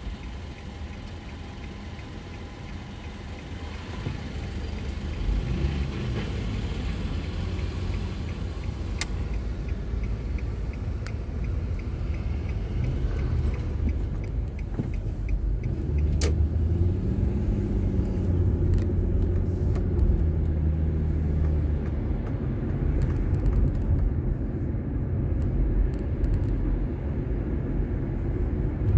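A car's engine and road noise, heard from inside the cabin while driving. It is lower for the first few seconds, then grows as the car pulls away, and the engine pitch rises and falls about halfway through.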